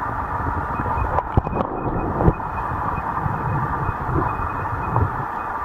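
Stream water rushing and rumbling as heard through an underwater camera, steady throughout, with a few sharp knocks in the first half.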